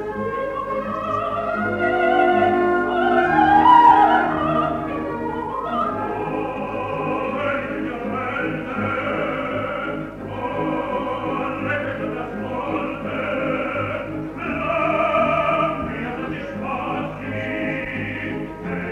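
Old live tape recording of opera: a soprano sings over the orchestra, her line climbing to a loud high note about four seconds in, then going on in shorter phrases with brief breaks.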